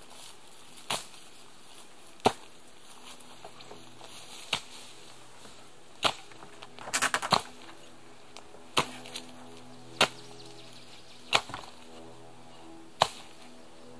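Long-handled chopping tool striking into roots and ground while brush is cleared: eight heavy, sharp strikes at a steady pace of roughly one every one and a half seconds, with a quick flurry of smaller hits about seven seconds in.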